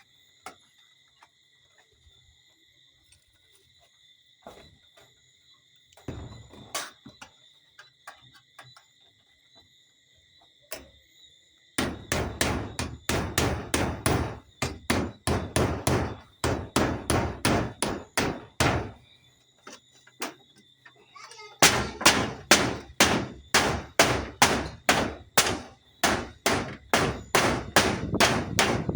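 Hammer driving nails with quick, steady blows, about three a second, in two long runs with a short pause between them. The first run starts about halfway in. Before it there are only a few scattered knocks.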